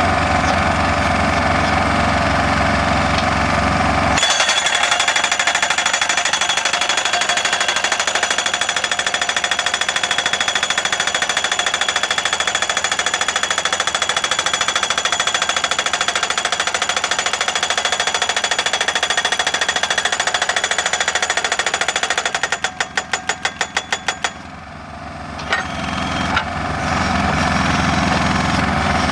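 Solar pile driver's hammer pounding a post in rapid, even strokes over the machine's engine, then slowing to separate blows and stopping; the engine runs on alone near the end.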